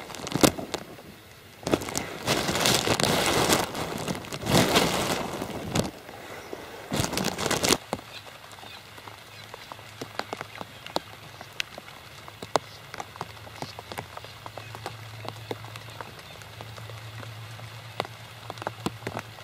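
Light rain falling on a plastic bag draped over the camera, heard as many scattered sharp taps of single drops. For the first several seconds the bag crinkles loudly as it is handled over the camera.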